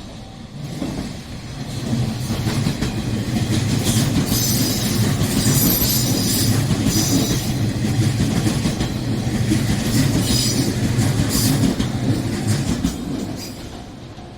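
A train passing close by at a level crossing: the rumble of wheels on rail swells over a couple of seconds, runs for about ten seconds with some high-pitched wheel squeal midway, then fades. A level-crossing warning bell rings in a steady repeating pattern underneath, heard plainly before and after the train.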